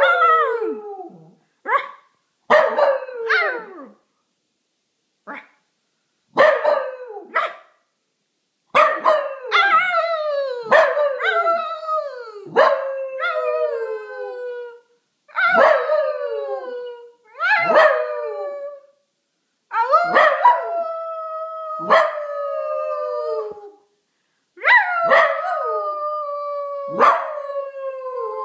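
Dachshund puppy howling over and over, each howl starting with a sharp bark and sliding down in pitch. The howls are short at first and grow longer, the last ones drawn out for three to four seconds.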